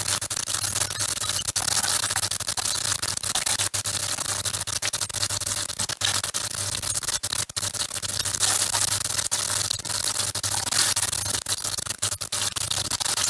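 Meatballs sizzling and crackling in hot oil in a frying pan, with frequent sharp clicks as a metal spoon lifts them out against the pan.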